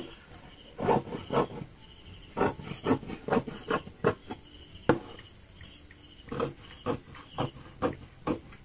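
Fabric scissors snipping through black daisy-print mesh on a wooden table: a run of short, sharp cuts, several a second, pausing briefly about midway.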